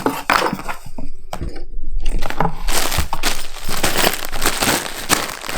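Plastic packaging crinkling and rustling as it is handled, with scattered sharp clicks; it grows denser and louder about two seconds in.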